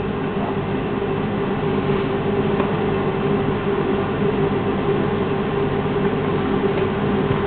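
Steady mechanical hum with a constant low tone, unchanging throughout, with a few faint taps from a spoon being stirred in a glass mixing bowl.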